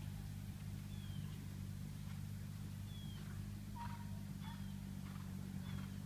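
A steady low engine hum, with short downward-sliding bird chirps repeating about once a second over it.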